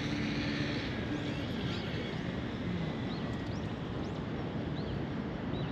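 Steady outdoor rushing noise, with a few faint, short, high bird chirps about one and a half to three and a half seconds in.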